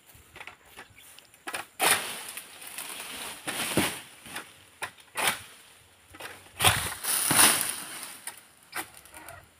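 A long-handled pole sickle working at oil palm fronds: irregular swishing, hacking and rustling strokes as the fronds are cut and shaken, with the biggest rustles about two seconds in and again near seven seconds.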